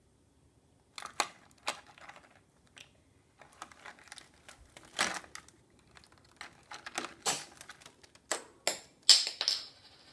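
Plastic bottle caps clattering against each other and a plastic dish as a budgerigar rummages through and tosses them: irregular clicks and rattles, with the loudest clacks near the end.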